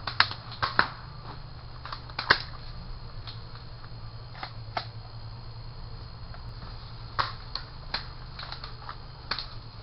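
Airsoft guns firing single shots: about a dozen sharp clicks and pops at uneven intervals, loudest in the first two and a half seconds, over a steady low hum.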